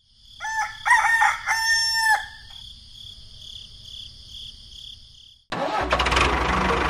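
Rooster crowing once: a few short notes, then one long held note, over a steady high ringing background. About five and a half seconds in, a loud engine noise starts abruptly.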